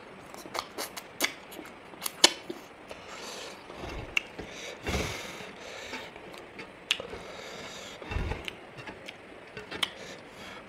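Close-up eating sounds of chicken wings being chewed: many short sharp smacks and clicks, with a few dull thumps.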